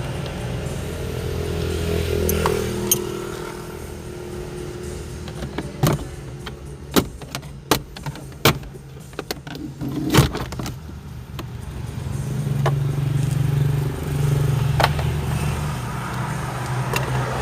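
A motor vehicle engine running steadily, broken in the middle by a series of sharp clicks and knocks.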